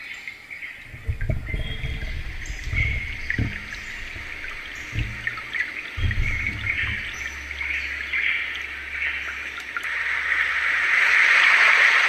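Small speaker of a Roffie N600 white noise machine playing a nature preset of bird chirps over trickling water, with some low thuds from a microphone arm being moved. About ten and a half seconds in it switches to a louder, steady static-like hiss.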